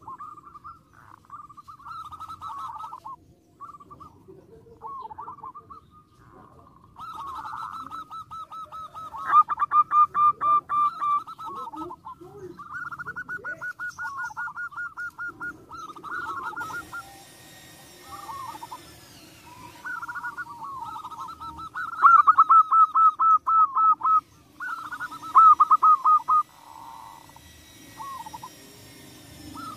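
Zebra dove (perkutut) cooing: repeated phrases of rapid, staccato pulsed coos with short pauses between them. The loudest phrases come about a third of the way in and again after two-thirds.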